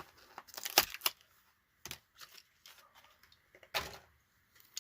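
Plastic blister pack being pried off its cardboard card: a series of sharp plastic crackles and clicks, loudest just under a second in and again near four seconds in.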